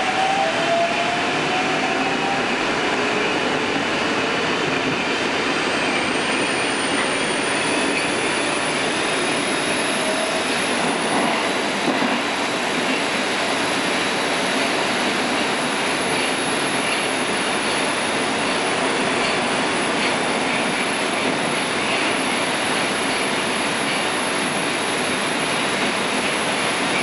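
Interior of a Moscow Metro 81-760/761 Oka subway car pulling out and picking up speed: the traction motor whine rises in pitch over the first few seconds, a high whine climbs from about six to nine seconds in, then the steady rumble and wheel noise of the train running through the tunnel.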